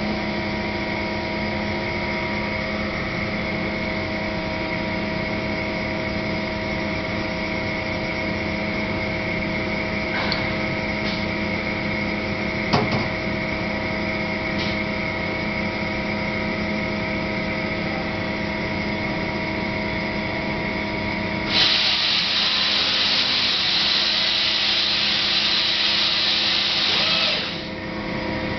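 Mazak Variaxis 630-5X five-axis CNC machining center running with a steady hum of several constant tones. A few clicks come a little before halfway through, and a loud hiss starts about three-quarters of the way in, lasts about six seconds, then cuts off.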